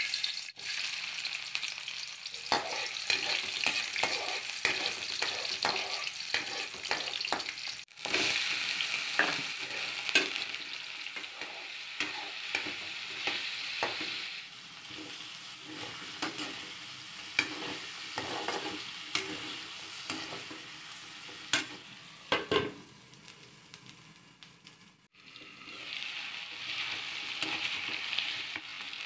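Garlic, then chicken pieces and diced potato frying in hot oil in a metal pan, a steady sizzle with frequent knocks and scrapes of a utensil stirring against the pan. The sizzle cuts off abruptly twice and comes back.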